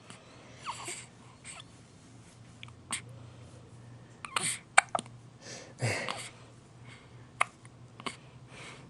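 A two-week-old baby hiccuping again and again: short, sharp hiccups about once a second, irregularly spaced, with small breathy sounds between them.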